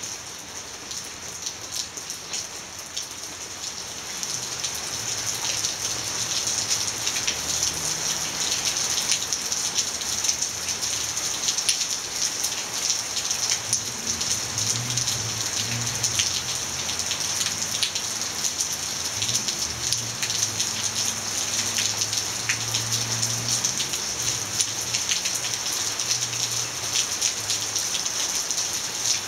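Steady rain falling, with many individual drops ticking on a surface; it gets heavier about four seconds in.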